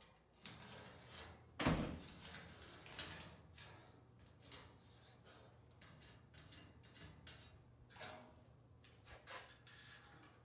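One heavy thump about a second and a half in, followed by scattered light knocks and clatters.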